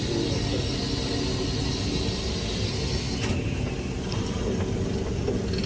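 Steam hissing over a low rumble inside a steam locomotive's cab; the high part of the hiss cuts off suddenly about three seconds in.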